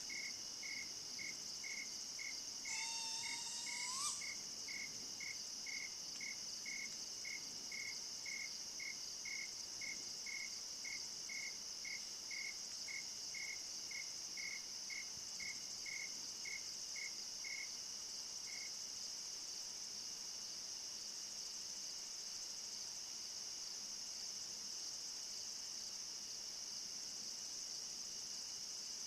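Steady night insect chorus with a regular chirp about twice a second that stops about two thirds of the way through. About three seconds in, an unidentified animal gives one call lasting about a second and a half that rises in pitch at its end.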